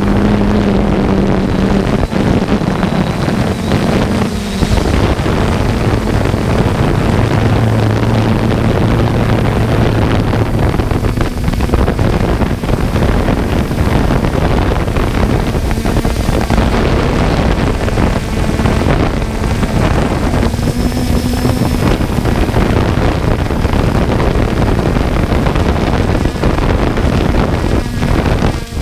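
Small drone's electric motors and propellers running with a steady hum, under loud wind rushing over the microphone; the hum shifts in pitch a few times.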